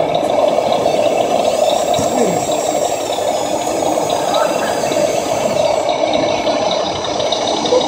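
Crowd chatter filling a busy hall, with a faint high whine that rises in about two seconds in, holds, and fades out about three seconds later.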